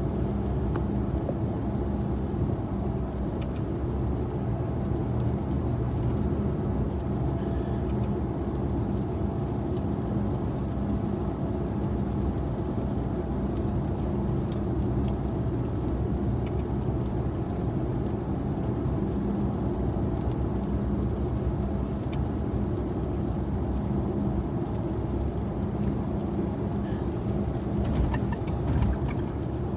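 Steady engine and road noise inside a moving car's cabin at highway speed, a low, even rumble with a faint engine hum.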